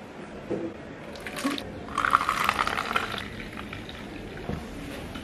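Lemon soft drink poured from a plastic bottle into a thin disposable plastic cup, the pour splashing loudest about two to three seconds in.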